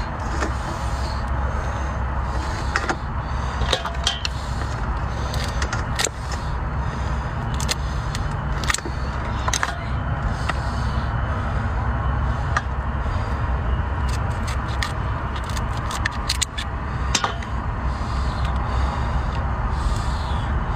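Cooked king crab shell cracking and snapping as the legs are broken apart and the meat is pulled out: scattered sharp clicks, a few every second or two, over a steady low rumble.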